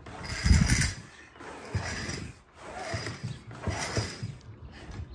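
Kayak anchor trolley being hauled forward in about four pulls, each roughly a second apart. The rope runs through the trolley's pulleys while the small fluke anchor on its line drags and clinks over a concrete floor.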